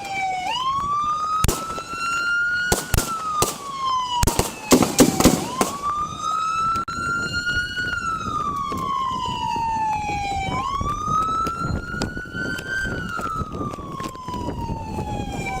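Police car siren on a slow wail, rising and falling about every five seconds. A few single gunshots crack out over it in the first three seconds, then a rapid volley of shots at about four to five and a half seconds in: an exchange of gunfire between a shotgun-armed suspect and officers.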